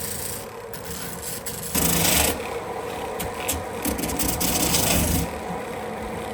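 Scraping and rasping of tyre rubber as the excess layer is cut away from the torn section of a tractor tyre, with a louder scrape around two seconds in.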